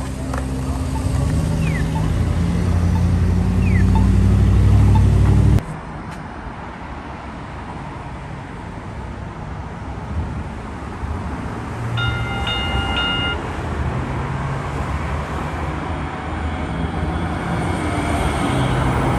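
Road traffic with a vehicle engine running low and growing louder, cut off abruptly about five and a half seconds in. Then a Sound Transit Link Kinkisharyo light rail train approaching the platform, sounding a short horn about twelve seconds in, its running noise rising as it pulls in near the end.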